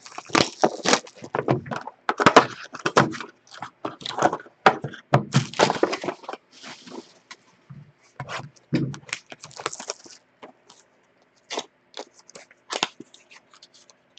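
A sealed trading-card box being torn open and a pack pulled out: a dense run of crackles, rips and rustles of wrapping and cardboard, thinning out in the second half.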